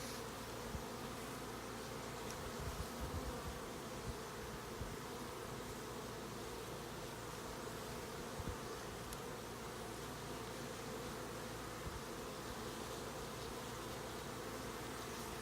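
Honey bees buzzing in a steady hum around an opened hive, with a few faint knocks.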